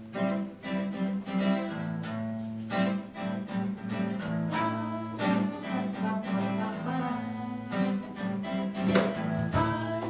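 Instrumental background music, with no singing.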